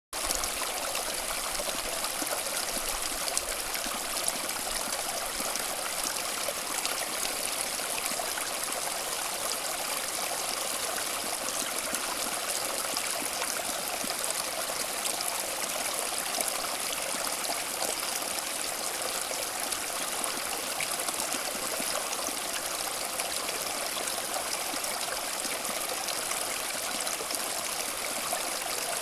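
Steady running water: an even, unbroken splashing rush with little low rumble, holding level throughout.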